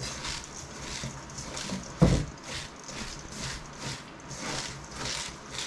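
Salted shredded cabbage being kneaded and squeezed by hand in a stainless steel bowl, a wet crunching rustle with each squeeze, about two a second: the salt is being worked in to draw out the juice for sauerkraut. One low thump about two seconds in is the loudest sound.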